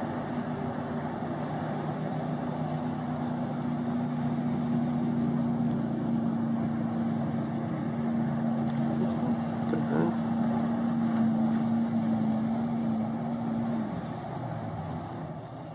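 Power boat engine running with a steady hum that drops away about fourteen seconds in.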